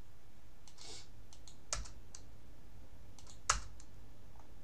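A few scattered computer keystrokes and clicks at an irregular pace, with two louder clacks about two seconds apart, as paragraph breaks are typed into the text.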